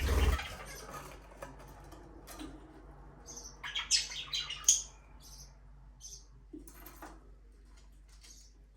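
Budgerigars chirping in short, scattered bursts, busiest about four seconds in. A dull thump at the very start is the loudest sound.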